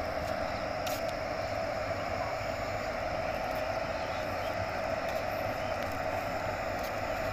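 WAP-4 electric locomotive approaching slowly at the head of a passenger train: a steady running hum and rumble from the locomotive and its wheels on the rails.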